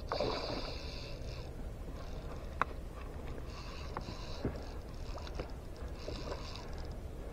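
Water and handling noise on a small skiff during a fish fight: a steady low rumble with patches of hiss, a few light knocks and one sharp click about two and a half seconds in.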